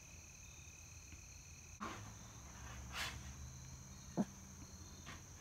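Crickets singing faintly, a steady high-pitched trill, with a few soft brief noises about two, three and four seconds in.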